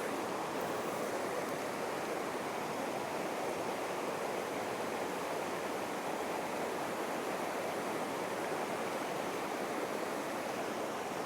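Steady rushing of a flowing creek, an even watery hiss that holds at one level throughout.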